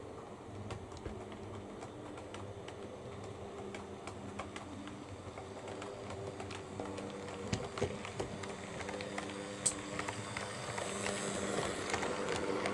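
OO gauge model train running on the layout: the electric motor of an Oxford Rail GER N7 tank locomotive hums steadily while the wheels click over the rail joints. It grows louder as the coaches approach and pass close by near the end.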